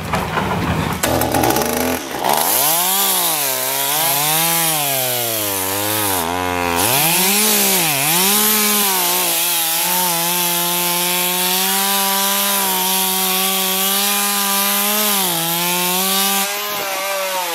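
Stihl top-handle two-stroke chainsaw revving up and down as the chain bites into a tree trunk, then running steadily at high speed through the cut, easing off briefly near the end.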